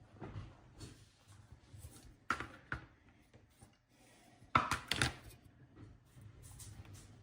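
Small clicks, taps and rubbing of drone parts and tools being handled during assembly, with a louder cluster of clicks about two-thirds of the way through.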